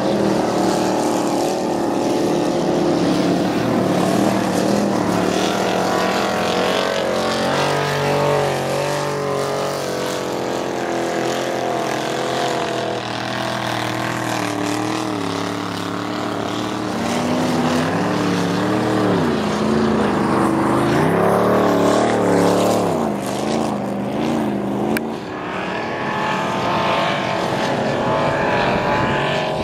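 Several ice-racing cars' engines running and revving on a frozen-lake track, their pitches rising and falling as they accelerate and back off through the corners, with more than one engine heard at once.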